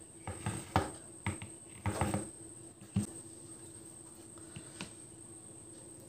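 A glass serving bowl knocking against a plate several times as gravy is tipped out of it, with a last, firmer knock about three seconds in as it is set down. After that come only faint soft sounds of fingers mixing rice.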